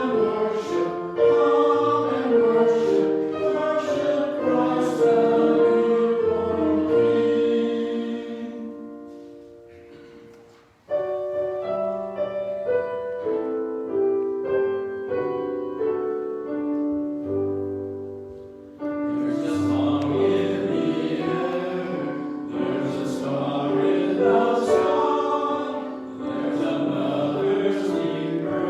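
A hymn sung by a group of voices with instrumental accompaniment. The singing fades out about nine seconds in, an instrumental interlude follows, and the voices come back in about two-thirds of the way through.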